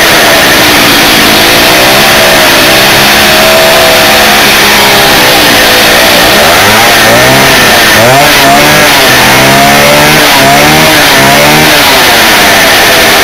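Stihl 08 chainsaw's two-stroke engine running loud, its speed rising and falling again and again as it is revved. The owner puts its uneven running down to a fuel delivery problem, a hardened carburettor diaphragm.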